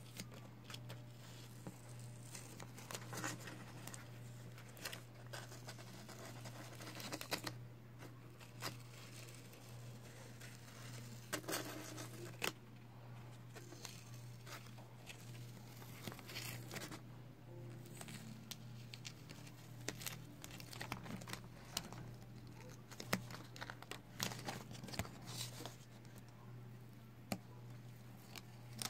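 Blue painter's tape being peeled slowly off watercolor paper, with irregular crackling and crinkling as the peeled tape is bunched up in the fingers.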